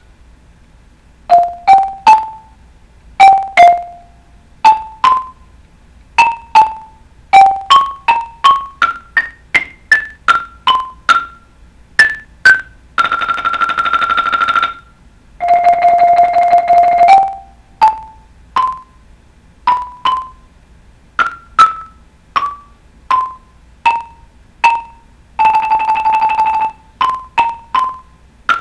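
A solo mallet etude played on a keyboard percussion instrument. Single notes are struck in quick runs up and down, each ringing briefly. Three held notes are sustained by rolls, two of them back to back about halfway through and one near the end.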